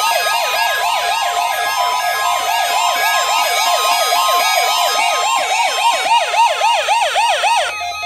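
Several NOAA weather alert radios sounding their alarms at once, set off by the weekly tone alarm test: overlapping siren-like warbles, each falling quickly in pitch about four times a second, over a steady high alert tone. The warbles cut off suddenly near the end.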